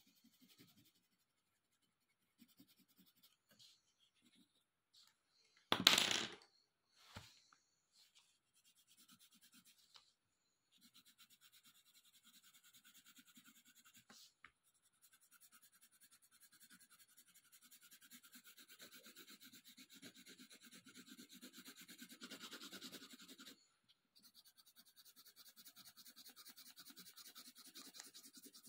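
Coloured pencil scratching on paper in quick back-and-forth shading strokes, sparse at first and steady from about ten seconds in. About six seconds in there is a sharp knock, the loudest sound, followed by a smaller one a second later.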